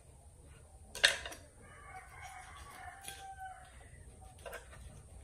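A rooster crowing in the background, one drawn-out call of about a second and a half, with a sharp knock of a knife on a wooden cutting board about a second in and faint knife clicks while a fish is filleted.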